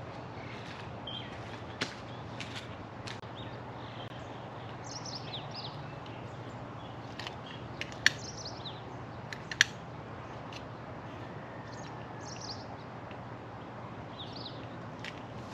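Smooth stones clacking as they are set by hand onto the rock pile of an imu pit, two sharp clacks about a second and a half apart near the middle, among scattered lighter clicks. Birds chirp with short falling calls over a steady outdoor hiss.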